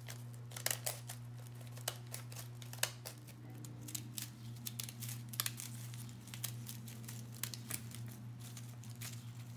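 Decorative-edge scrapbooking scissors snipping through a painted, glitter-coated paper bag, an irregular run of crisp snips mixed with paper crinkling as the bag is handled. A steady low hum sits underneath.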